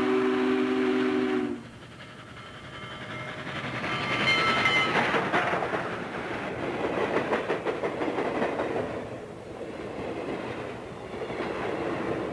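A steam locomotive's chime whistle sounds a low chord that cuts off about a second and a half in. Then comes a fainter, higher whistle tone, and the train passes with a rushing noise and rhythmic clatter of wheels on the rails.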